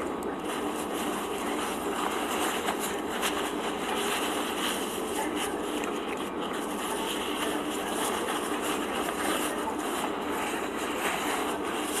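Light, irregular crinkling and rustling as a paper napkin is crumpled and handled, over a steady background hum.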